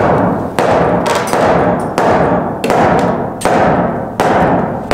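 Sledgehammer blows on a wooden floor joist: about seven heavy strikes, roughly one every three-quarters of a second, each with a short booming ring, as a new joist is driven in under a sunken wall.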